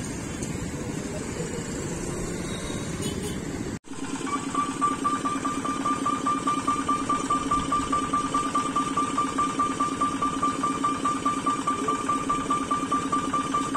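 Motorcycles and an auto-rickshaw running past over a level crossing, then, from about four seconds in, a level-crossing warning bell ringing in rapid, even pulses at a steady pitch while the barrier is down for an approaching train.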